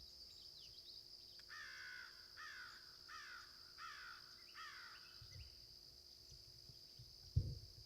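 A crow cawing five times in a row, harsh calls a little under a second apart, over a steady high-pitched insect drone. A dull thump near the end.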